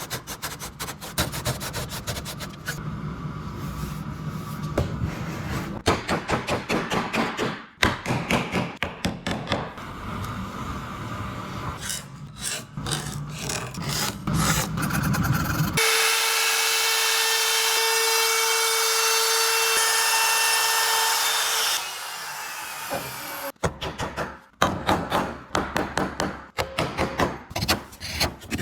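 Rapid back-and-forth strokes of a hand tool cutting or rasping wood. About halfway through, the strokes stop and a steady machine whine runs for about six seconds before the strokes resume.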